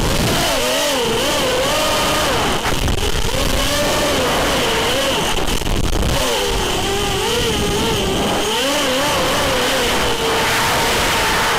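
Brushless motors and props of a four-motor FPV racing quadcopter whining, the pitch swinging up and down with the throttle, with wind rushing over the onboard microphone. A steady high tone sits underneath.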